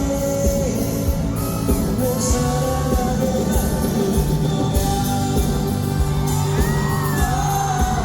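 Live pop music at a concert: a voice singing long held notes over a band with a steady drum beat, with shouts from the audience.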